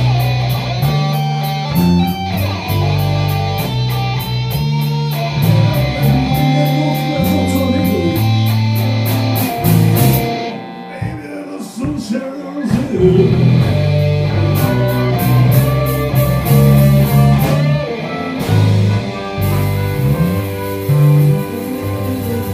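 Live blues band playing a slow blues: electric guitar over bass and drums, with the hi-hat ticking steadily. About halfway through, the drums and bass drop out for a couple of seconds, then the full band comes back in.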